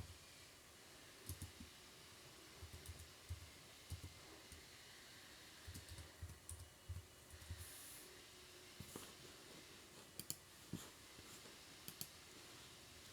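Faint typing taps in quick clusters, then a few separate sharper clicks.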